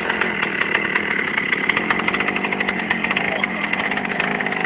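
Chainsaw's two-stroke engine running steadily at high speed, driving a homemade walk-behind tractor.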